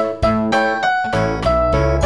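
Background music: a keyboard tune with a piano-like sound and a bass line, quick successive notes.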